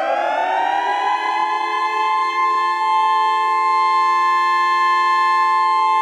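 Air raid siren wailing: its pitch climbs over the first second or so, then holds at a steady high note, with several tones sounding together.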